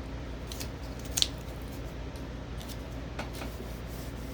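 A few small, sharp clicks and crackles of something being handled at close range, the loudest a single snap about a second in, over a steady low hum.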